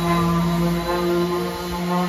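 Slow ambient background music with long held notes that shift pitch every second or so over a steady low drone.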